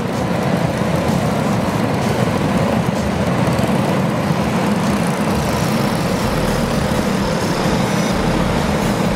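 Several racing kart engines running together, a steady blended drone without distinct revs or impacts.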